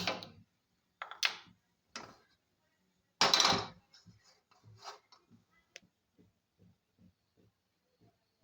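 Cooking pots and utensils being handled: several sharp knocks and clatters in the first few seconds, with a louder half-second clatter about three seconds in, then faint soft thumps about twice a second.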